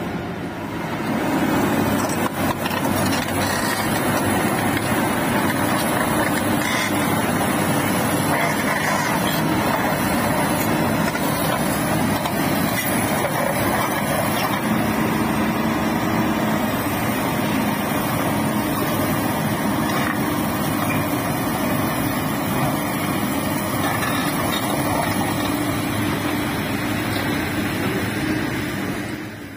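Heavy diesel engine running steadily. It grows louder about a second in and holds an even level.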